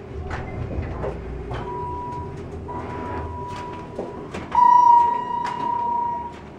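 A hydraulic elevator car settles at a floor with a low rumble and a few clicks, then its doors slide open with a knock about four seconds in. A steady high tone sounds through much of it and becomes much louder and buzzier for about two seconds near the end.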